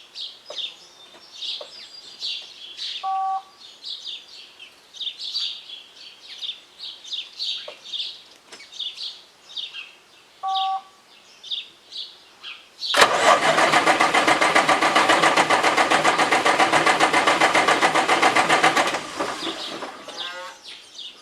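Caterpillar 3176 diesel in a 1990 Peterbilt semi cranked on the starter for about six seconds with a fast rhythmic churn, without catching. This is a no-start, traced to a failed engine computer. Birds chirp throughout, and two short electronic beeps sound earlier.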